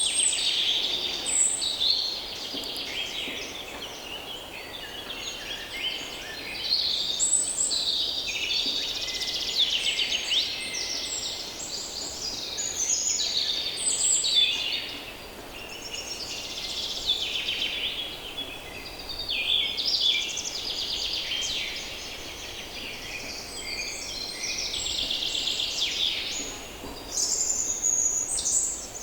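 A dense chorus of many songbirds singing and calling at once, overlapping trills and chirps with no pauses, over a faint steady background hum.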